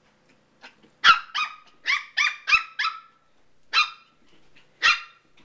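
Papillon puppy yapping: a quick run of six high-pitched barks about a second in, then two more single barks spaced about a second apart.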